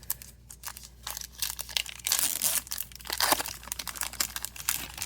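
Crinkling and rustling of a foil trading-card pack wrapper being handled and torn open, an irregular crackle that is busiest and loudest in the middle.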